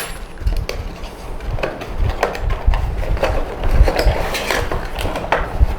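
Irregular small clicks, taps and low thumps of a boxed Intel Core i5 10th-generation processor and its stock cooling fan being handled and taken out.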